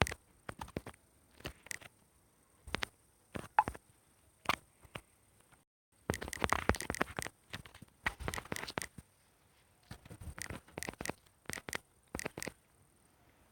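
Irregular sharp clicks, taps and short crackling clusters, scattered and uneven in spacing, with a brief complete drop-out near the middle.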